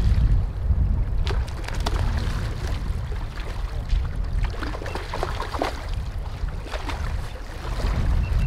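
River water lapping and splashing in short irregular bursts over a steady low rumble of wind on the microphone.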